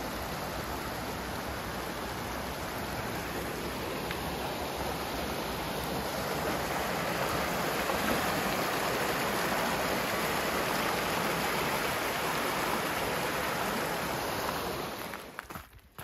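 Stream water rushing steadily, growing a little louder about halfway through and fading out near the end.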